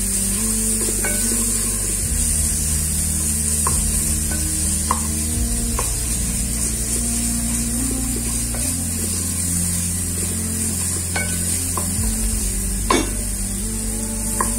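Onions and garlic-ginger paste sizzling steadily as they fry in an aluminium pot, stirred with a wooden spoon that scrapes the pot. There are scattered clicks of utensil on metal, the sharpest about 13 seconds in.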